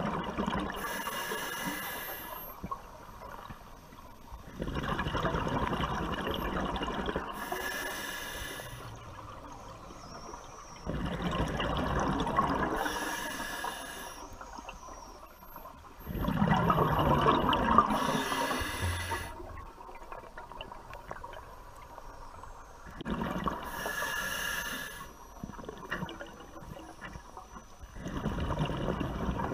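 Scuba diver breathing through a regulator: rushing bursts of exhaled bubbles alternating with shorter hissing inhalations, a full breath about every five to six seconds.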